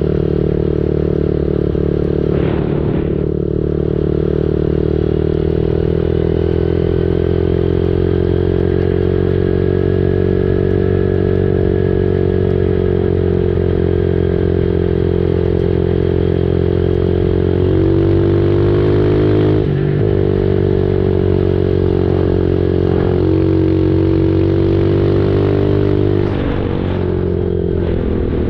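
Dirt bike engine running steadily at low speed. It picks up a little about two-thirds of the way through and eases off near the end.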